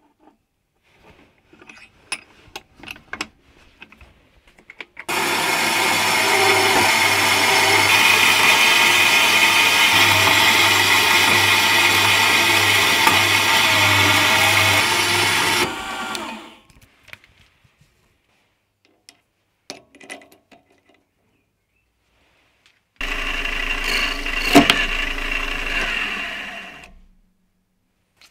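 A small metal-cutting bandsaw runs for about ten seconds, sawing through aluminium bar stock, then winds down as it is switched off. After a pause a mini lathe spindle runs for about four seconds with a turning tool on the part in its chuck, with one sharp click partway through. Light clicks of handling come before the saw starts.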